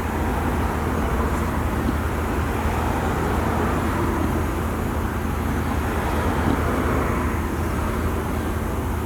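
Steady vehicle noise: an even low rumble with hiss above it, unbroken and without sudden events.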